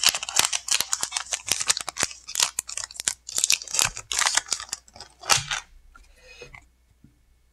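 Foil booster-pack wrapper of a trading card pack being torn open and crinkled by hand: a rapid run of sharp crackles and rips that thins out about six seconds in and stops.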